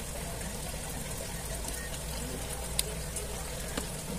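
Small plastic clicks from a Redmi phone's frame and mainboard being handled and fitted together, over a steady background hiss and hum. One sharper click comes a little under three seconds in.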